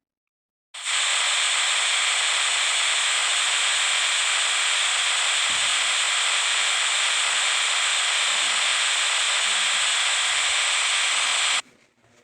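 Loud, steady electronic static hiss that switches on about a second in and cuts off abruptly near the end.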